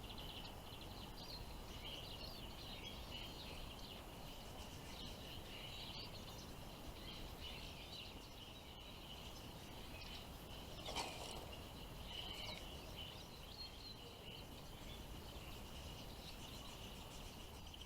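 Faint twittering of small finches, the goldfinch-hybrid lure bird and visiting greenfinches, over a steady outdoor background hiss. A brief knock about eleven seconds in.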